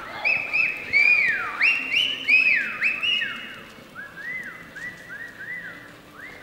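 Shrill whistling: a quick run of short notes, each rising and falling. They overlap at several pitches, are loudest in the first three seconds, then go on fainter and lower.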